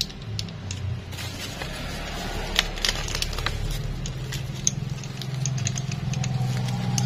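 A yellow box cutter's blade slicing open a black plastic bag, the thin plastic crinkling and crackling with many sharp clicks. A steady low hum runs underneath and grows louder in the second half.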